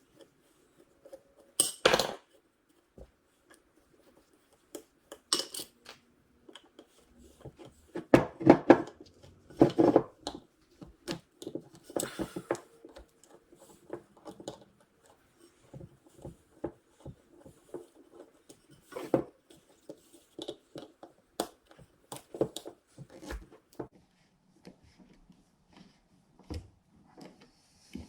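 Metal hand tools and small alternator parts clinking, knocking and scraping during disassembly, in irregular taps with a few louder scrapes about two, eight to ten and twelve seconds in.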